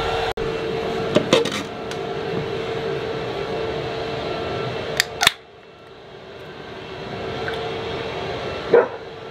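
Steady drone of a neighbour's leaf blower with a held hum, then a sharp crack and hiss of a drink can being opened about five seconds in. The drone then drops away and a distant aircraft slowly grows louder.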